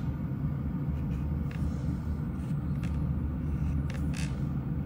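Steady low hum of a manicure-table nail dust collector's fan, with a few faint light clicks.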